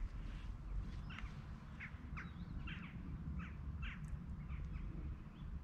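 A bird calling in a run of short, falling notes, about two a second, over a low rumble of wind on the microphone.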